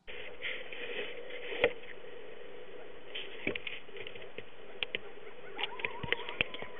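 Sound picked up by a handheld zoom camera's own microphone: a steady hum with scattered clicks and taps from the camera being handled, and a short motor whine that rises and then holds about five and a half seconds in.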